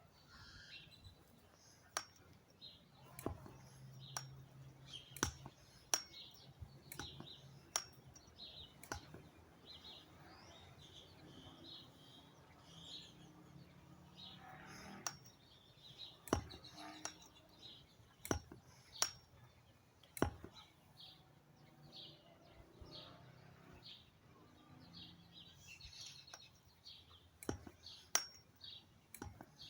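Air Venturi G9 high-pressure hand pump being worked: sharp clicks at uneven intervals, about one every one to two seconds with a few longer pauses. Birds chirp in the background.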